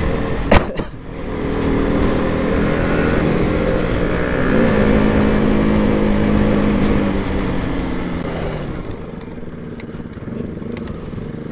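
KTM RC 200's single-cylinder engine running under way, its pitch climbing around the middle as it pulls harder, then dropping away as the bike slows. A brief high squeal comes about three-quarters through.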